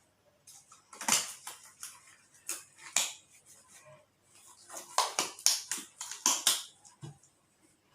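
Sharp clicks and clacks of small hard objects being handled and set down, in a burst about a second in and a longer run from about five to six and a half seconds in.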